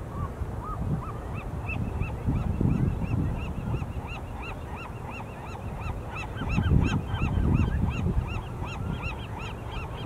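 A flock of birds calling over and over in short, quick, honking notes, several a second, starting about a second in, with a few lower calls at first. Low rumbles come and go underneath.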